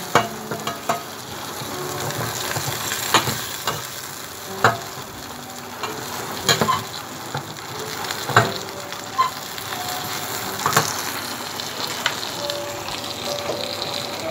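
Chopped garlic frying in rendered chicken fat in a stainless steel pan with a steady sizzle. A metal spatula scrapes and knocks against the pan every second or two as the garlic is stirred.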